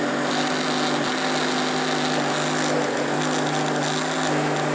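Countertop blender motor running steadily, blending a green smoothie in its jug, with a constant hum and whir. This is the final blend of the smoothie.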